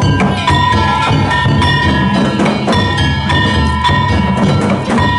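Danjiri festival music played on the float: a drum beaten in a quick rhythm and small bronze hand gongs (kane) clanging, their metallic ringing carrying between strokes.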